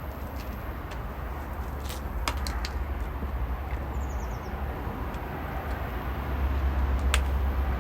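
Pressure washer running and spraying its water jet: a steady low motor hum under a hiss, getting a little louder about six seconds in, with a few faint clicks.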